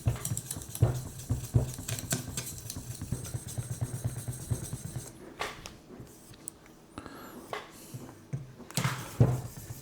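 Light irregular clicks and scraping from working a guided knife sharpener: a stone on its arm rubbing along the blade, and small taps of metal and stone against the clamp. It is quieter in the middle, with a few sharper taps later on.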